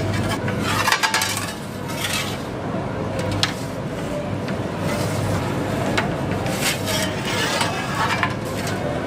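Scattered sharp metallic clinks and scrapes over a steady low hum.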